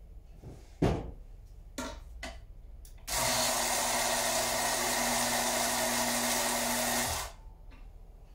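Portafilter knocked out against a knock box, one sharp loud knock about a second in and two lighter ones after. Then a MACAP M7D coffee grinder runs for about four seconds, a steady whirring motor hum as it grinds beans into the portafilter, cutting off near the end.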